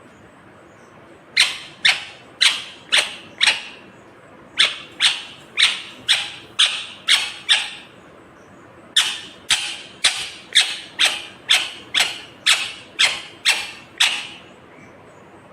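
Rose-ringed (ringneck) parakeet giving loud, sharp repeated calls at about two a second, in three runs: about five calls, then seven, then eleven, with short pauses between.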